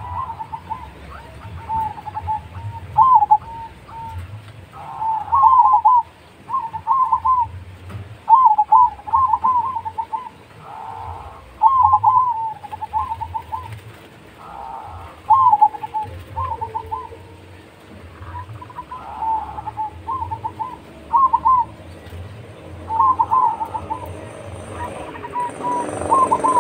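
Zebra dove (perkutut) singing its cooing song: short phrases of quick, clipped coos repeated every second or two.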